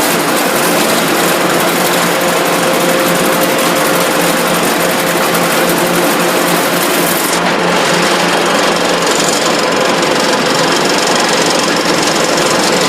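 Food-processing machinery on a French fries production line running with a loud, fast, steady rattle; the high hiss fades about seven and a half seconds in.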